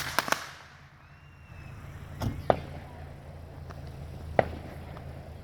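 Consumer fireworks going off: a quick run of three sharp bangs at the start, then a few scattered single pops.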